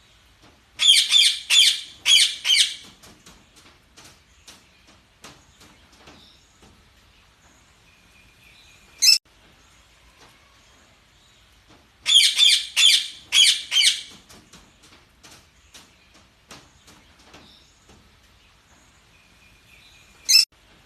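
Budgerigars chirping: two bursts of loud, rapid high chirps about eleven seconds apart, each later followed by a single sharp call, with soft scattered clicks and chirps in between.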